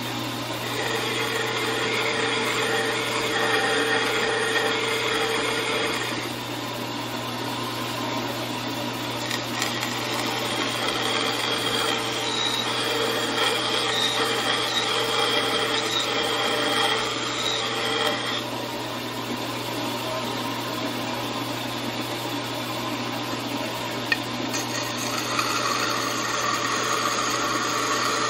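A 4x6 metal-cutting bandsaw running steadily with a constant motor hum while its blade cuts through aluminum plate. The cutting noise rises and falls in long stretches as the plate is fed into the blade and turned along the layout lines.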